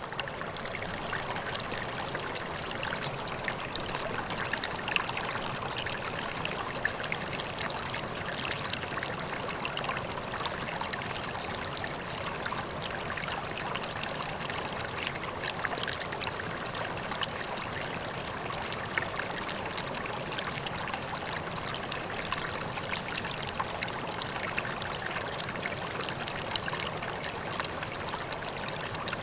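Koi pond water trickling and splashing in a steady, unbroken stream.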